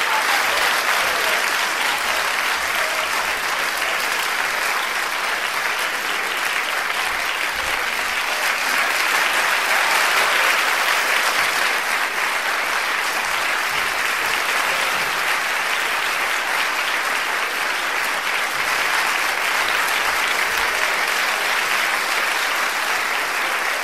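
Audience applause, a dense, steady clapping that swells a little about ten seconds in.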